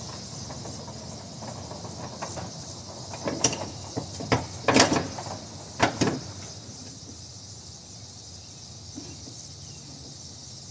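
A strap edge protector handled on a stacked flatbed load: a short run of scrapes and knocks between about 3 and 6 seconds in, over steady insect chirring.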